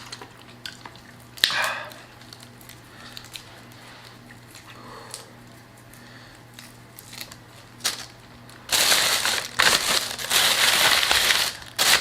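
Boiled seafood being peeled by hand close to the microphone: scattered small clicks, then from near the end a loud stretch of crunching and crinkling that lasts about three seconds, the sound he apologises for as annoying.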